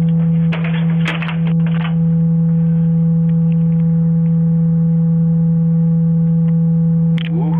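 A loud, steady low hum with fainter higher tones above it. A few clicks sound in the first two seconds, and a short rising sweep comes near the end.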